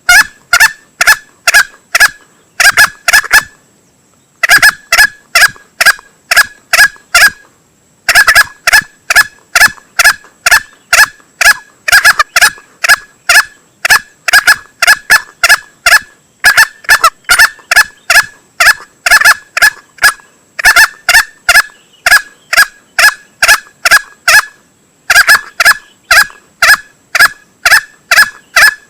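Male green junglefowl calling: short, sharp notes repeated about two to three times a second in long runs, with a few brief breaks. This is a hunting lure call meant to draw in rival males.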